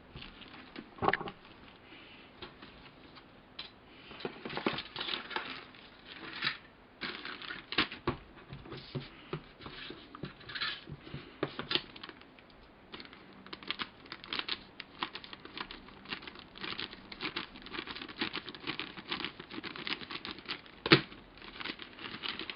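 Plastic model kit parts and their packaging being handled: dense, irregular clicking, rustling and crinkling of sprues and plastic bags, with one sharper click near the end.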